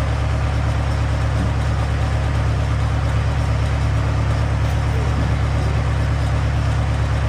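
Skid steer's engine running steadily at an even pitch, with no revving or change.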